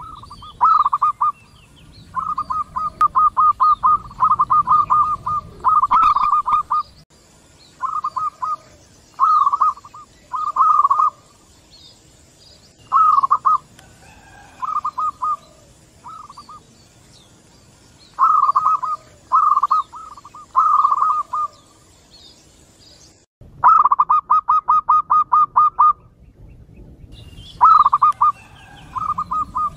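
Zebra doves (perkutut) cooing back and forth: short phrases of rapid, pulsed coos repeat one after another with brief pauses, as several birds answer one another. The sound breaks off for about a second near the end.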